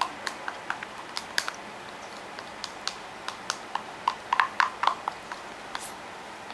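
A sleepy toddler chewing and smacking his lips: a run of small mouth clicks, thickest about four seconds in.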